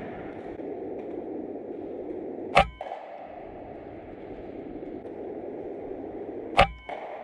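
Two sharp shots from a .22 PCP air rifle, about two and a half seconds in and again near the end, each followed by a brief metallic ring. The second is fired at a feral pigeon on a concrete ledge.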